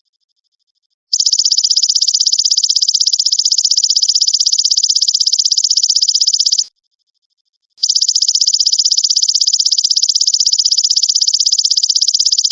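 Golden grasshopper (belalang emas) trilling: long, rapidly pulsed high-pitched buzzes. One buzz starts about a second in and lasts about five and a half seconds; after a pause of about a second, another starts and runs on.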